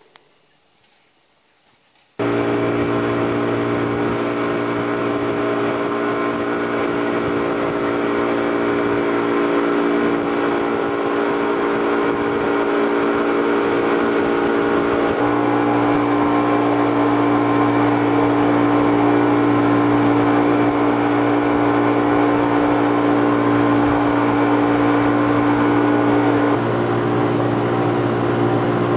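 Boat motor of a wooden river canoe running steadily, a loud drone with a strong steady pitch. It comes in abruptly about two seconds in after a faint start, and its pitch shifts slightly about halfway through and again near the end.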